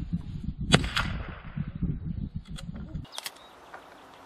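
Sharp clicks from repriming a brass 11 mm Mauser case with a hand priming tool as a new percussion cap is pressed into the primer pocket. There is one loud click about three-quarters of a second in and a few lighter clicks later, over a low rumble that stops about three seconds in.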